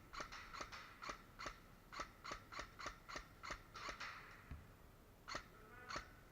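Airsoft gun firing a quick run of single shots, each a sharp snap, a few a second for about four seconds, then two more shots near the end.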